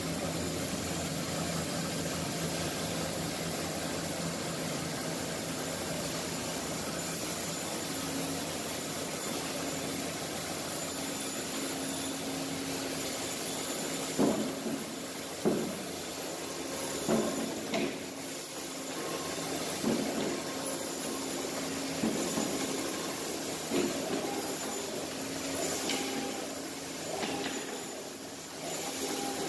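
Mainali RB-1 automatic band saw running, its motor and conveyor giving a steady hum and whir while frozen blocks are fed to the blade. From about halfway, sharp knocks come every one to two seconds as the feed and hold-down mechanism works.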